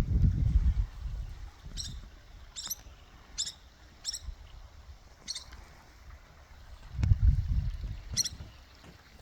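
A small bird calling in short, high chirps, about six of them spaced a second or so apart. Low rumbling near the start and again about seven seconds in.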